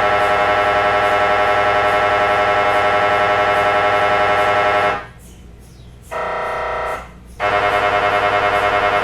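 MRI scanner's gradient coils buzzing in a loud, fast-pulsing drone. It cuts out about five seconds in, a shorter, quieter tone sounds a second later, and then the pulsing drone starts again.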